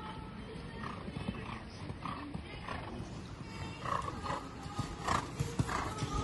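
Horse's hoofbeats on the sand footing of a dressage arena, a rhythmic beat of about two strides a second that gets louder as the horse comes close.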